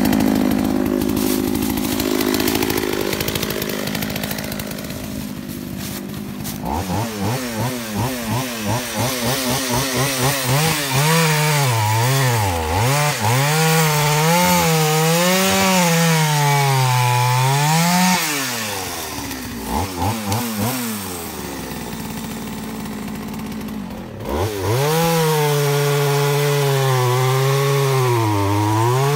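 Partner P70 two-stroke chainsaw felling a tree: the engine runs at high revs into the cut, its pitch sagging and recovering as it loads up in the wood. It drops back to idle about two-thirds of the way through, is blipped a few times, then goes back to full throttle in the cut near the end.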